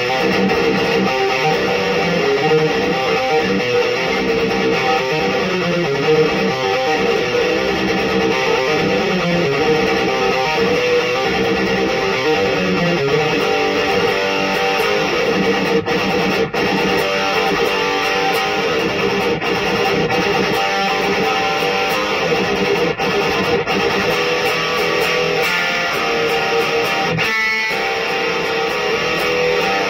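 Solar electric guitar played through a Black Cat Amps Djenttonic distortion pedal, an Electro-Harmonix 44 Magnum power amp and a 1x12 cab: a loud, continuous high-gain metal riff.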